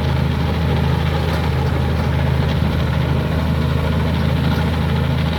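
Komatsu D83E bulldozer's six-cylinder turbo diesel engine running at a steady, even speed.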